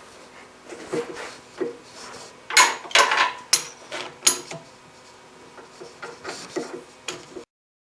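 Handling noise of metal tools and parts: a series of irregular clinks and knocks, a few sharp ones close together in the middle, with no machine running. The sound cuts off abruptly near the end.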